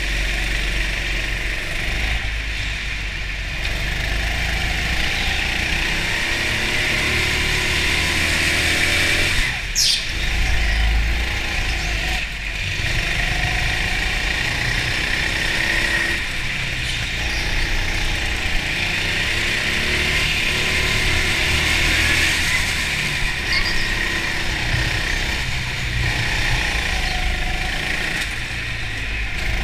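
Go-kart motor heard from on board while racing, its pitch rising and falling as the kart speeds up and slows through the corners, with a brief sharp high sound about ten seconds in.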